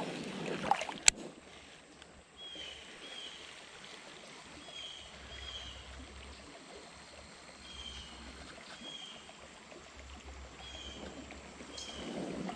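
Creek water running steadily. A sharp click comes about a second in, and faint high chirps in pairs repeat every few seconds.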